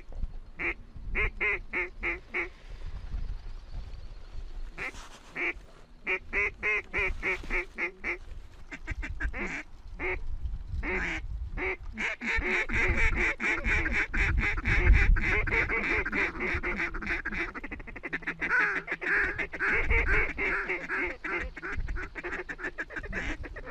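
A large flock of waterfowl calling overhead. It starts as quick runs of repeated calls and swells, about halfway in, into a dense, unbroken chorus of many birds calling at once.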